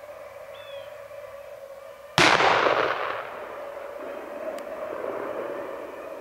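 A single shotgun shot about two seconds in, its report echoing and fading away over the next second or so.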